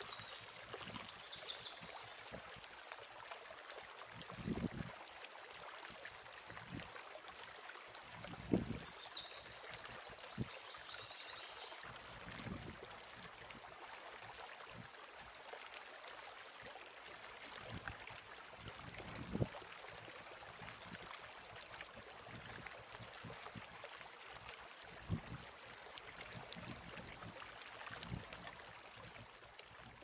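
Outdoor ambience: a steady even hiss, with a few soft low thumps and short high chirps about a second in and again around eight to twelve seconds in.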